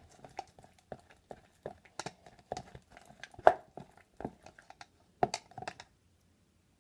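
Plastic stirrer tapping and scraping against the inside of a red plastic party cup while stirring still-sticky slime: irregular clicks a few times a second, the loudest about three and a half seconds in, stopping about six seconds in.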